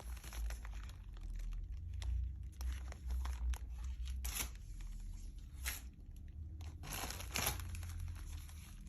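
Packaging being torn open and crinkled by hand during an unboxing, with irregular sharp crackles and tears, the loudest about four, six and seven and a half seconds in, over low handling rumble.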